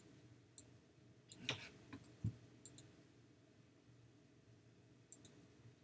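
A few sharp computer mouse clicks, some in quick pairs, spread across a quiet room, with a dull low knock about two seconds in.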